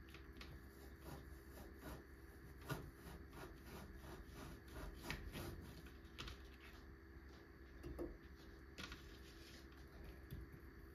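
Knife sawing through a log of raw minced meat on a plastic cutting board: a run of soft, uneven strokes and taps, with a few sharper knocks of the blade against the board.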